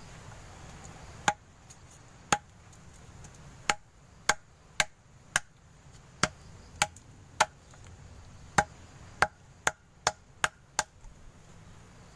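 Kindling being chopped by hand at a fire pit: about fifteen sharp strikes at an uneven pace, each with a short ring.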